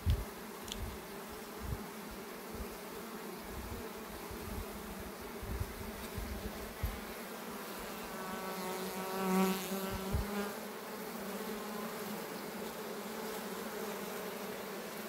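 A colony of honeybees humming steadily around an open hive, many of them crawling in a cupped hand. About eight seconds in, one bee buzzes louder close by for a couple of seconds, its pitch bending, and a few low bumps of handling come in the first half.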